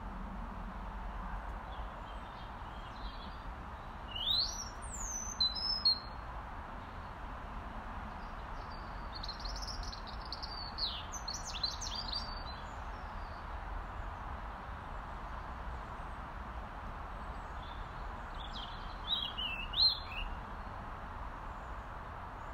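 Robin calling: three short bursts of high, quick gliding notes, over a steady background hiss.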